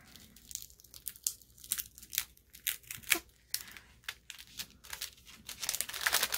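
Clear cellophane sleeve crinkling and crackling as it is handled and pulled open, a string of short, sharp crackles that grows denser and louder near the end.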